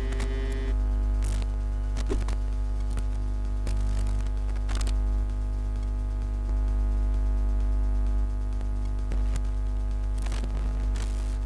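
Background music with a strong, steady low drone, its loudness shifting in blocks, and a few faint clicks.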